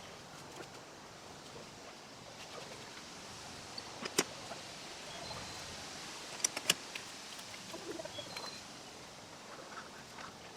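Quiet outdoor background with a few sharp clicks or knocks: one about four seconds in and a quick run of three about two and a half seconds later. Faint brief high chirps can also be heard.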